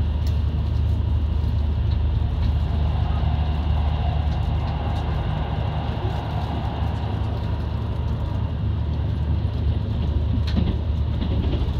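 Cabin sound of a JR Kyushu KiHa 72 series diesel railcar under way: a steady low drone from the running diesel engine over the even rumble of the train on the rails, with a few light clicks near the end.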